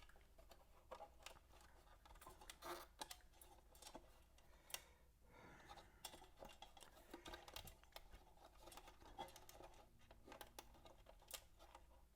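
Faint, scattered small clicks and scrapes of hands working on turntable parts during reassembly, with one sharper click about five seconds in.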